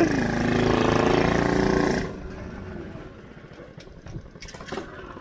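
Go-kart engine running steadily, then cutting off suddenly about two seconds in.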